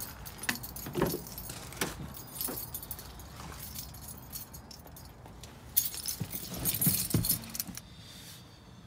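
Keys jangling in hand, with scattered clicks and knocks as a car door is opened and someone gets into the driver's seat; the loudest clatter comes about six to seven seconds in. The engine is not running yet.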